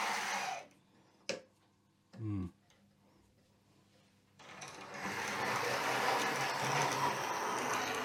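Hornby Class 58 model locomotive's tiny motor and gears whirring as it runs along the track, still dry and stiff from decades unused and in need of running in. The whirr cuts out a little after half a second in and starts again about four and a half seconds in, with a single click and a short voiced murmur in the quiet gap.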